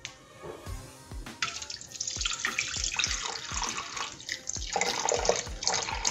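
Water pouring in a steady stream into the stainless steel bowl of a Thermomix, starting about a second and a half in, as the water for pizza dough is weighed out.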